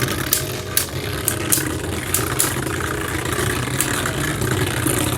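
Two Beyblade Burst tops spinning and clashing in a plastic stadium: a steady whirring hum broken by repeated sharp clicks as they collide.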